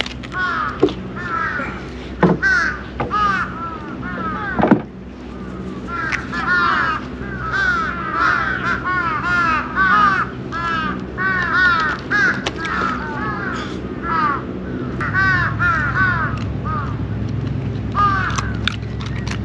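Crows cawing over and over in quick succession, several calls overlapping, with a few sharp knocks in the first five seconds. A low steady hum comes in about fifteen seconds in.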